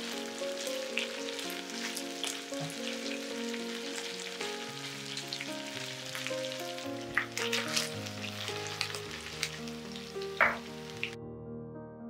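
Cubes of salmon frying in hot olive oil in a nonstick pan: a steady sizzle full of crackles and sharp pops, the loudest pop near the end. The sizzle cuts off about a second before the end, leaving soft piano music.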